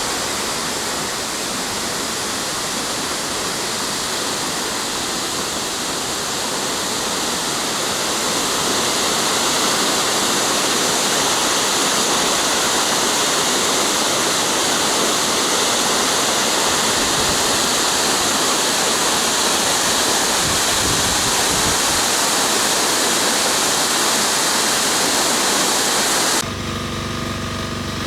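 Waterfall: a steady rush of falling water that grows louder about eight seconds in. Near the end it cuts off suddenly and gives way to a steady mechanical hum.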